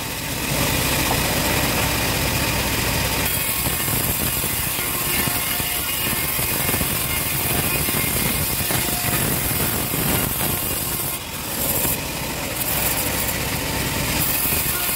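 Homemade bandsaw mill running steadily while a teak plank is sawn and fed along its table, with a brief dip about eleven seconds in.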